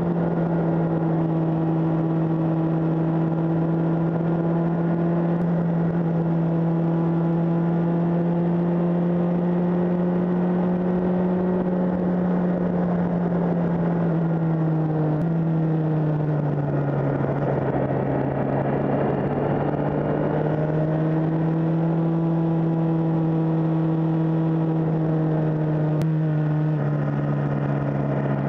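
Suzuki GSX-R600's inline-four engine running at steady cruising revs under a rush of wind noise. The engine note steps down in pitch about halfway through, climbs again a few seconds later, and steps down once more near the end.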